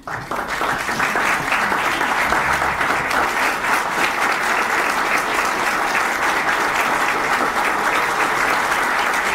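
Audience applauding: dense, steady clapping that breaks out suddenly and holds at an even level.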